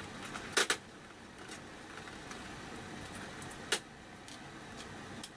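Two sharp plastic clicks about three seconds apart, the first about half a second in, as a small pry tool works at a 2006 Ford F-150 instrument cluster's gauge needle, a tight press fit on its stepper motor shaft. A fainter tick comes near the end.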